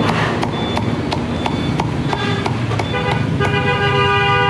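Cleaver chopping crispy roast pork on a thick wooden tree-trunk chopping block, steady knocks about three times a second, over a low hum of street traffic. About three and a half seconds in, a vehicle horn sounds and holds steady.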